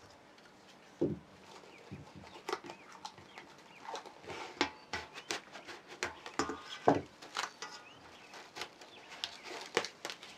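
Cling film crinkling and crackling in irregular snaps as hands press and smooth it around the rim of a steel mixing bowl.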